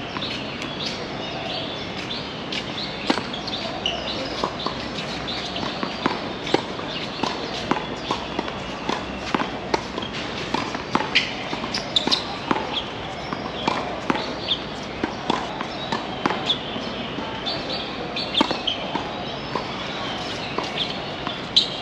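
Tennis balls being struck by rackets and bouncing on the court, sharp pops and thuds at irregular intervals, with footsteps and voices in the background.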